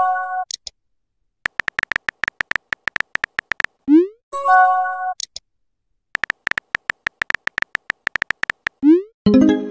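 Messaging-app sound effects: two bursts of rapid keyboard-tap clicks as text is typed, each followed by a short rising swoop and then a stepped electronic chime of a few steady notes with a high blip, as messages are sent and appear in the chat.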